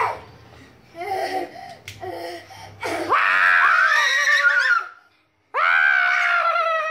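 Young children laughing, then two long, high-pitched shrieks, the first about three seconds in and the second just past the middle, slowly falling in pitch.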